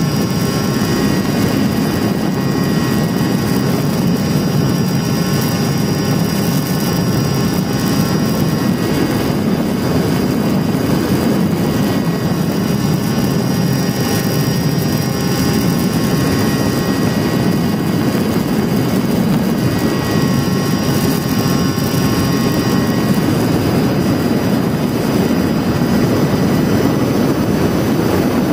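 Onboard sound of a Mini Talon RC plane in flight: its Sunnysky 2216 brushless motor driving an APC 9x6 propeller at steady cruise. A dense low rush of noise sits under a thin, steady high whine, with no change in throttle.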